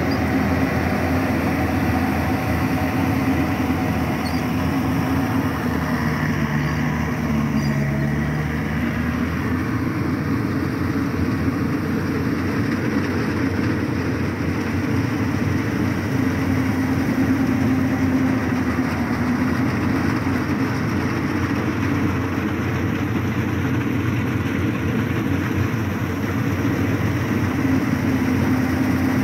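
Yanmar YH880 rice combine harvester working in the crop, its diesel engine and threshing machinery running with a steady drone. A second, lower hum joins for a few seconds about six seconds in.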